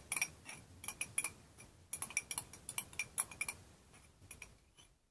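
Yogurt being spooned and scraped out of its cup into a glass mixing bowl: a quick run of light clicks and clinks of the spoon against the cup and bowl, thinning out near the end.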